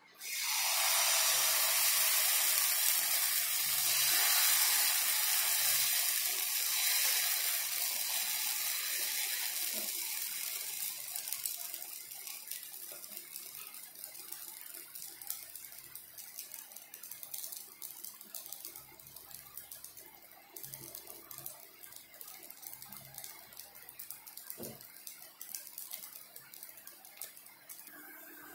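Semolina batter sizzling in hot oil on a black griddle pan. The sizzle starts suddenly and loud, as the batter meets the hot pan, and after about ten seconds settles to a quieter, crackling sizzle.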